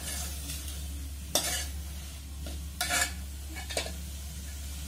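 A metal spoon stirring sorrel leaves and chana dal in a metal pot, scraping and clinking sharply against the pot a few times, over a steady low hum.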